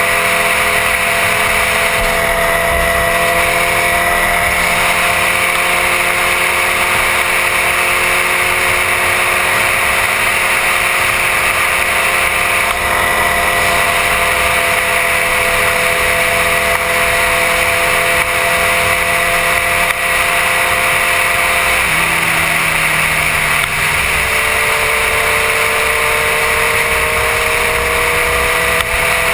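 Suzuki GSX-R 1000's inline-four engine running steadily at road speed under heavy wind rush, its pitch creeping slowly upward. About 22 seconds in the pitch drops suddenly with a gear change, then climbs again.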